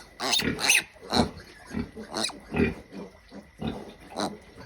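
Young pig grunting and squealing in short, repeated calls, about two a second.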